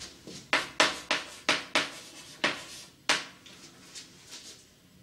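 Chalk writing a word on a blackboard: about seven sharp strokes and taps in quick succession over the first three seconds, then a few faint ones.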